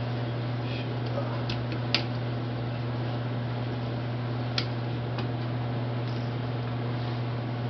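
Steady low hum, like a fan or room machine, with a few light clicks and taps from handling. The loudest click comes about two seconds in and another near the middle.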